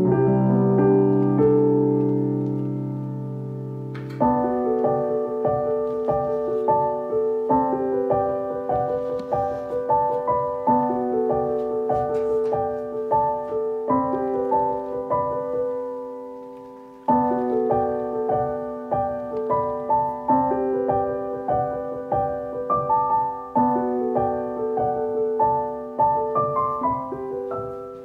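Background music: a solo piano plays a gentle, repeating pattern of notes. It fades away a little past the middle, then the phrase starts again.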